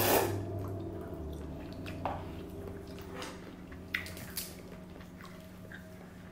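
Quiet, wet eating sounds of someone eating crab legs: a few short lip smacks and clicks, around two, three and four seconds in, over a steady low hum.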